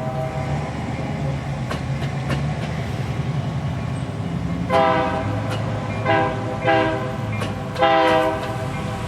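Union Pacific EMD diesel locomotive sounding its multi-note air horn in four blasts: a longer one about five seconds in, two short ones, then a longer one near the end. The diesel engine rumbles steadily underneath, with faint clicks of wheels over rail joints.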